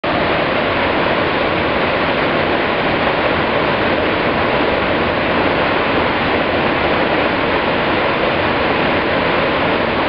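Waterfall pouring close by: a steady, loud rush of falling water.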